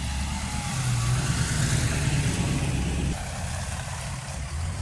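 Pickup truck engines idling. A steady low drone stops abruptly about three seconds in and gives way to a quieter idling rumble.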